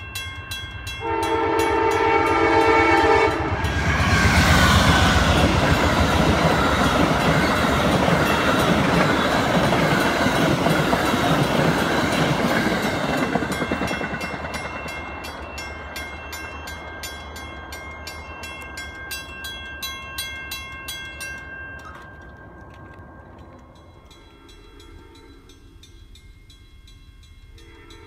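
Amtrak P42 diesel locomotive's horn sounding a chord for about two seconds, starting about a second in. Then the passenger train passes at speed, its wheels rushing and clattering on the rails, and it fades as it goes away after about 13 seconds. A grade-crossing bell rings steadily and stops about 22 seconds in.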